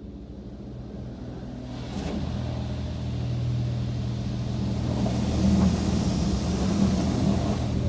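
A touchless automatic car wash's water spray hitting the car, heard from inside the cabin over a steady low hum. The spray hiss grows louder about two seconds in as the jets reach the car.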